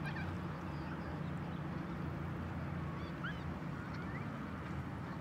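Steady low hum and rumble of outdoor shore ambience, with a few faint, short rising bird chirps about three to four seconds in.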